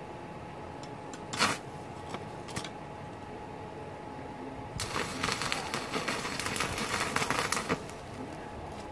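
Stick (MMA) arc welding with a Daisung ARC200-MOS inverter welder set to 50 A: the arc crackles steadily for about three seconds, starting about five seconds in, under a welding load of roughly 10 A drawn from the mains. A short sharp crack comes about a second and a half in.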